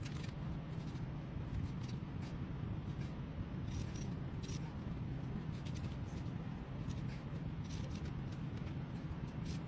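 Irregular scrapes and clicks of hand work on a part, over a steady low hum.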